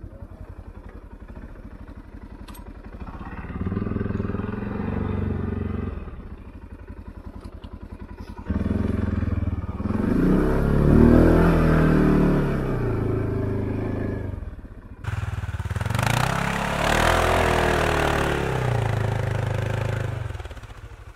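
Arctic Cat Alterra ATV engine revving in repeated surges as the quad works through snow, its pitch rising and falling with the throttle; the loudest pulls come about halfway through and again a few seconds later.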